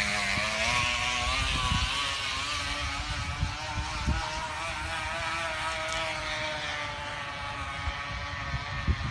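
Plastic bottle pressed against a bicycle wheel's spokes, flicked by them in a fast, steady buzz like a small motorcycle engine. The pitch rises over the first couple of seconds as the bike gathers speed, then holds and slowly sinks, and the buzz grows fainter as the bike rides away.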